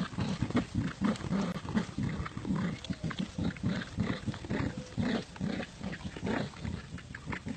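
Dogs play-growling while tugging on a toy: a steady run of short, low growls, several a second.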